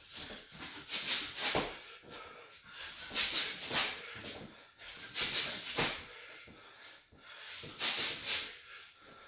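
A boxer's sharp hissing exhales through the mouth, one with each punch while shadowboxing hooks, coming in four pairs about half a second apart. A couple of low thuds from his feet on the wooden floor come between them.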